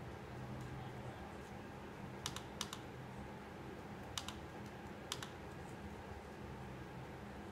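Computer mouse button clicks: four sharp clicks spread over a few seconds, each a quick press-and-release pair, over a low steady hum.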